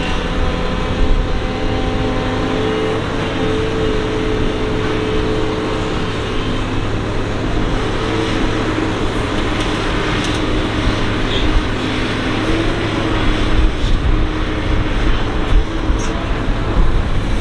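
Doosan DX225LC excavator's diesel engine working under load as it digs and swings, with steady tones that shift in pitch every few seconds. The sound grows more uneven near the end.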